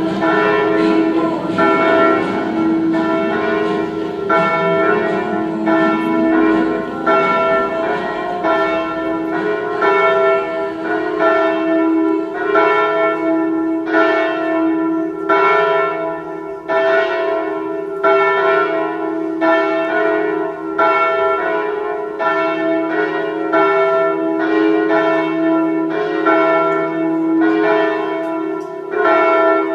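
Church bells ringing for a funeral, struck about once a second in an uneven pattern over a lingering hum.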